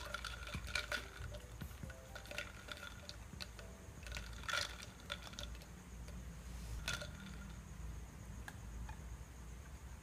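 A stirrer and ice clinking against a tall glass of iced milk tea as it is stirred: a few light, ringing glass clinks spread over several seconds, over a faint low hum.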